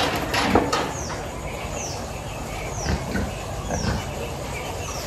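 A bird calling over and over with short high chirps that slide downward, about one a second. A few knocks and a low grunt-like sound come in the first second, as the pig shifts in the metal weighing crate.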